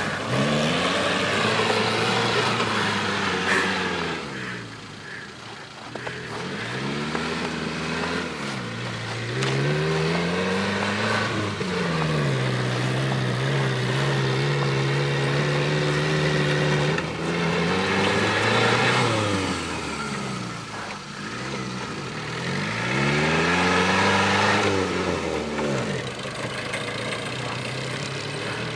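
Suzuki Samurai engine revving up and down repeatedly as the jeep is driven hard across snow. The revs are held high and steady for about five seconds midway, then climb and fall again before settling lower near the end.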